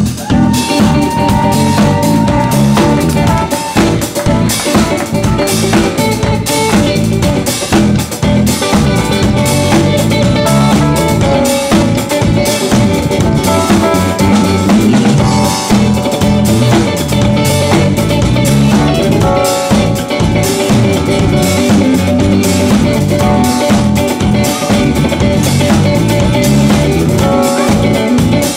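Live band playing an instrumental passage, the drum kit prominent with steady bass drum, snare and rimshot hits over bass guitar and electric guitar.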